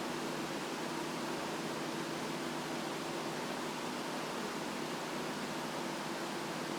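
Daikin Emura indoor AC unit's condensate pump buzzing: a steady low hum with a few even overtones over a constant hiss of airflow. The installers put the buzz down to the pump running dry.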